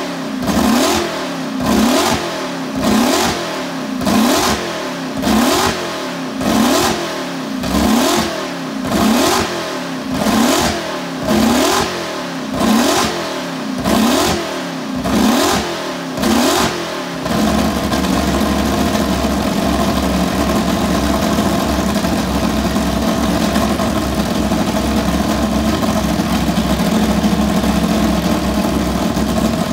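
Mercedes W196R's straight-eight racing engine being warmed up through its open exhaust, blipped over and over in an even rhythm, roughly one rise and fall in revs every second and a quarter. About two-thirds of the way through, the blipping stops and the engine settles into a steady, even note held at constant revs.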